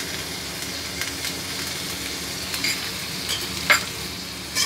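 Boiled potato pieces and peas sizzling in hot oil in an aluminium kadhai, a steady hiss, with a few sharp clicks of a metal spoon against the pan, the loudest about three-quarters of the way through.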